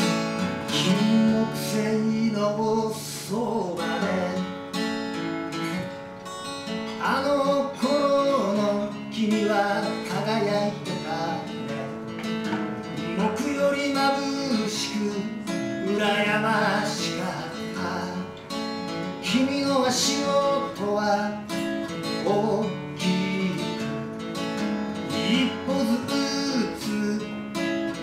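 Acoustic guitar strummed live, accompanying a man singing.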